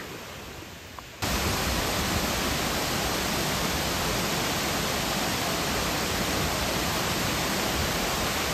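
Steady rush of water from a tall waterfall falling down a rock face. It cuts in suddenly about a second in, loud and even, after a short stretch of faint outdoor hiss.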